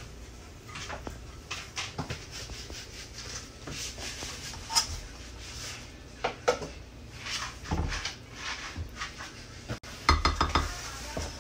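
Serving spoon scooping cooked rice out of a metal pot into a glass dish, with scattered scrapes and taps of the spoon against the pot and the glass. A quick run of clinks comes about ten seconds in.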